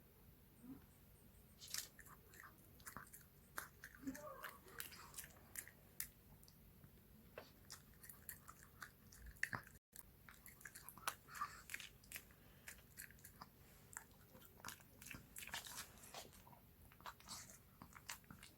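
A dog chewing a boiled egg, with many quick, irregular wet mouth clicks and smacks.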